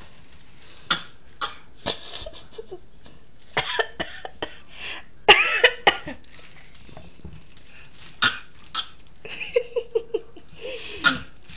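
Deliberate fake coughs in short separate bursts, a woman's coughing and a toddler's imitation of it, with pauses between them. The loudest come in a quick cluster about five seconds in.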